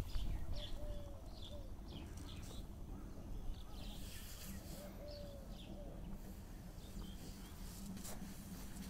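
A dove cooing twice in the same three-note phrase, a short note, a long drawn-out one and another short one, with small birds chirping high above it. A brief bump at the very start.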